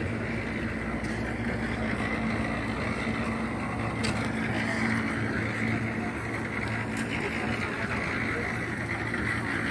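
Steady low engine hum of motor vehicles, even throughout, with a faint hiss above it.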